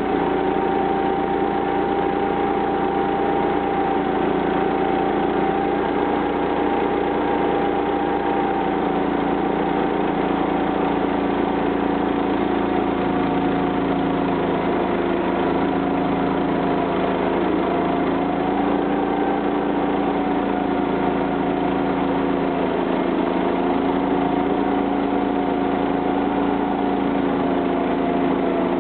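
The 13 HP gasoline engine of a homemade band sawmill running steadily, its pitch wavering slightly now and then.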